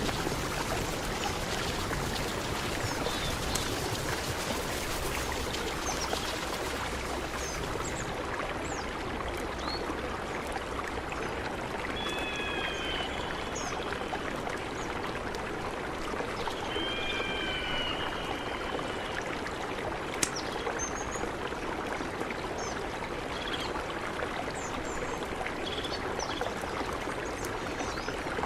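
Mountain river flowing steadily, a dense even rush of water. Short high chirps are scattered over it, with two brief multi-note calls about midway.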